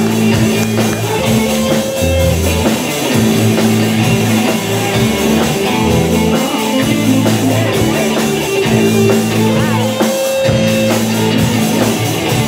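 Punk rock music: electric guitar chords, bass and a drum kit playing a steady driving beat.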